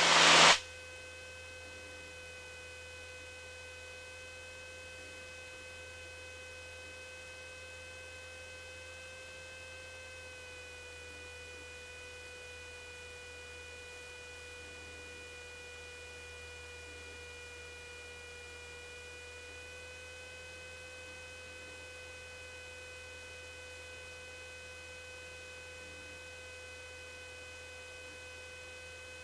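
Steady hum and whine of a Cessna 150 in flight as heard through the cockpit audio feed. The pitch dips slightly about ten seconds in and comes back up near twenty seconds, following the engine speed.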